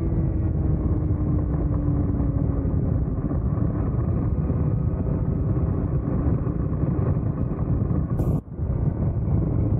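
Vortex Mini ROK 60cc two-stroke kart engine heard from on board, its pitch falling over the first three seconds as the kart slows into a corner, then running steadily under a dense low rumble. The sound dips briefly about eight and a half seconds in.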